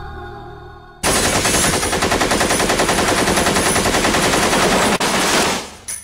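Soft music fades out. About a second in, a loud, rapid rattle of sharp repeated pops like automatic gunfire starts abruptly, runs for about four and a half seconds, then cuts off.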